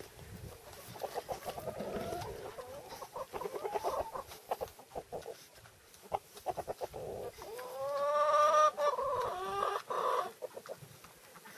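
Chickens clucking in short pitched calls, with one longer, louder call that rises and falls about eight seconds in.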